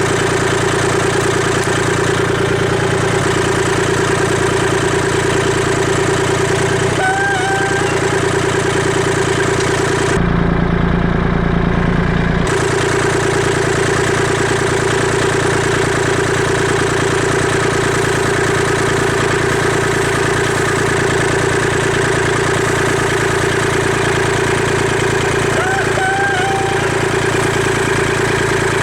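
An engine idling steadily. There is a brief change in its tone about ten seconds in, and two short high chirps, one about seven seconds in and one near the end.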